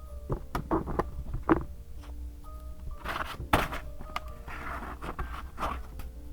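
Paper and stationery handled on a desk while decorating a vintage journal: several light taps and knocks and a couple of short paper rustles, over soft background music.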